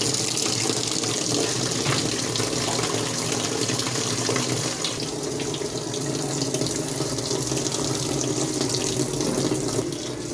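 Union Air 13 kg top-load automatic washing machine filling: water running steadily through the inlet valve into the drum at the start of the wash cycle.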